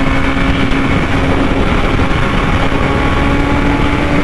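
BMW S1000RR sport bike's inline-four engine holding a steady high-speed cruise, its note dipping slightly and then climbing a little toward the end, under heavy wind rush on the rider's microphone.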